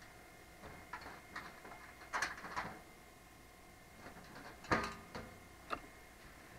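Rear side panel of a PC tower case being worked loose and slid off: scattered clicks and light knocks of the panel against the case frame, the loudest a little under five seconds in.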